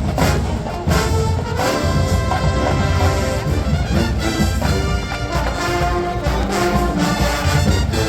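Marching band playing loud brass-led music: trumpets and trombones holding chords that change every second or so, over a steady drum beat.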